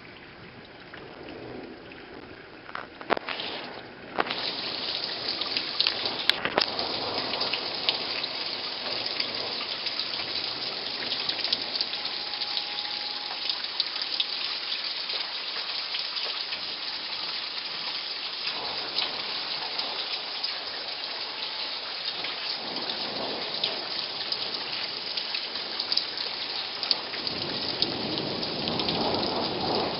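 Heavy rain pouring down in a thunderstorm, a dense hiss of drops that jumps to much louder about four seconds in. Low rumbles of thunder rise twice in the second half.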